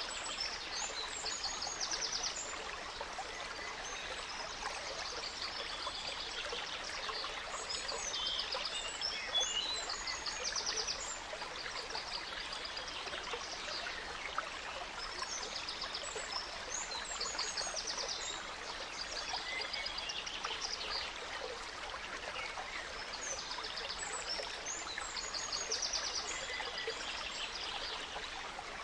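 Gentle forest stream running steadily, with several songbirds singing high chirps and quick trills over it in repeated bouts.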